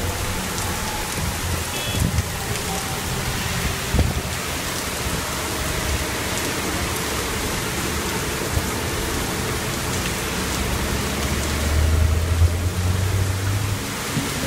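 Heavy thunderstorm rain pouring steadily onto the ground and a flooded street, a dense, even hiss. A couple of sharp taps come early, and a low rumble swells about eleven seconds in and fades just before the end.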